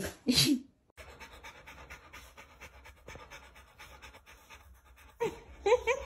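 A Rottweiler panting quickly and rhythmically, mouth open and tongue out. Near the end, short pitched voice-like sounds come in over the panting.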